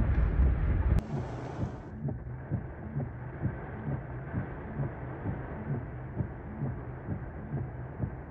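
Loud wind buffeting and road rumble from driving through hurricane winds and rain, cut off suddenly about a second in. Then, inside a stopped vehicle with rain falling, a steady low thumping repeats about twice a second.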